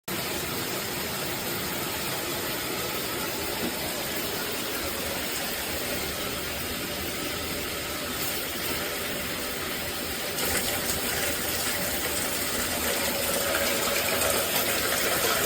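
Shower head spraying water in a steady hiss, getting a little louder about ten seconds in.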